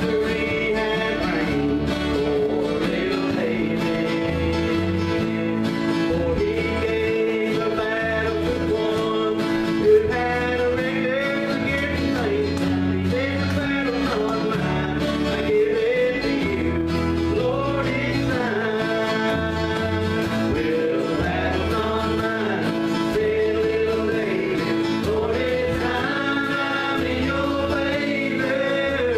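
Live bluegrass gospel band playing: acoustic guitars strumming over a steady bass line, with voices singing.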